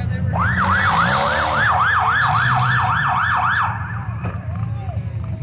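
A siren in a fast yelp, rising and falling about three times a second, which slows to a few fainter whoops about two-thirds of the way through. Engines run underneath.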